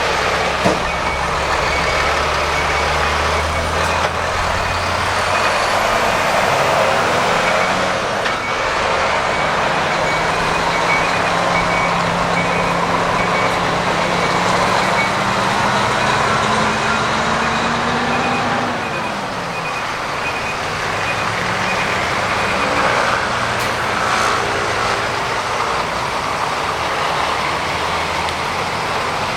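Large trucks' diesel engines running as they manoeuvre, with one engine's pitch slowly rising and then dropping about two-thirds of the way through. A truck's reversing alarm beeps steadily over the first two-thirds.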